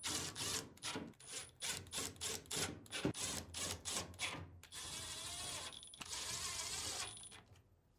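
Screws being driven into a dryer's sheet-metal front panel: a run of sharp clicks for the first few seconds, then a power driver whirring twice, about a second each time.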